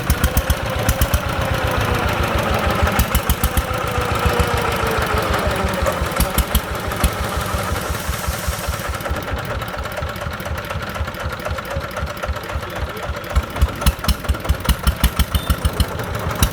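Single-cylinder diesel engine of a công nông farm three-wheeler running with a rapid, even knocking beat.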